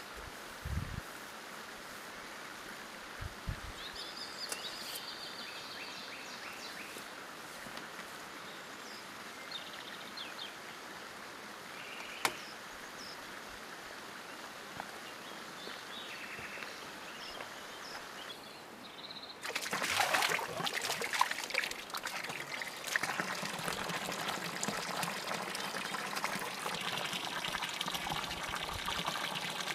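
Water from a fountain spout starts suddenly about two-thirds of the way in and pours steadily, splashing into a shallow basin of standing water. Before it, only a faint outdoor background with a few small clicks.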